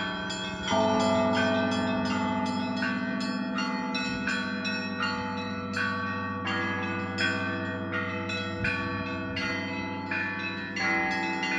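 Russian Orthodox monastery bells ringing: small bells struck in a quick, steady pattern about three times a second over the ringing of larger bells, with a deeper bell struck about a second in.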